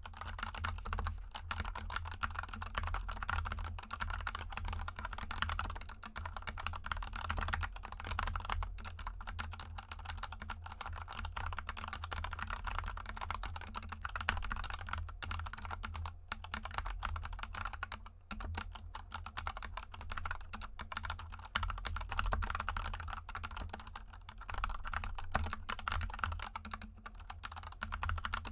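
Continuous fast typing on a GK64 mechanical keyboard with Gateron Yellow linear switches lubed with Krytox GPL 205 g0 and XDA profile keycaps: a dense stream of key clacks, with a steady low hum underneath.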